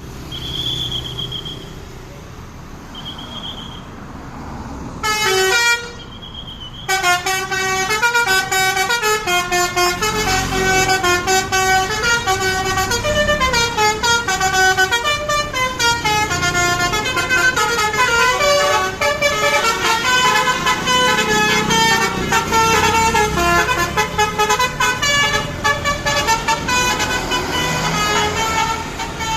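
Basuri telolet horn, a multi-note musical bus horn, playing a fast run of changing notes like a tune, starting about five seconds in, over a low rumble of traffic. Before it, two short high beeps.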